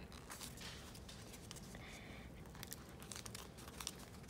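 Faint crinkling with a few small scattered crackles, from a nail-polish-coated clay ice cream cone and the slime on it being squeezed and pulled in the fingers.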